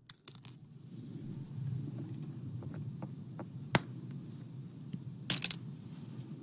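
Hammerstone striking a flint core while a Levallois core is being shaped: a few light clicks at the start, one sharp crack near the middle, and a quick ringing cluster of strikes near the end, over a low steady hum.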